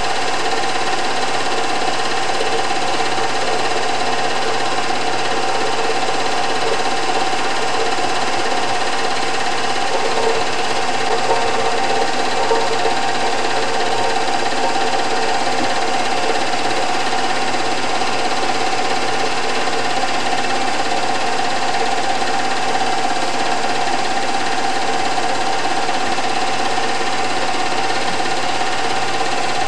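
Movie projector running: a steady, unchanging mechanical whirr of its motor and film-advance mechanism.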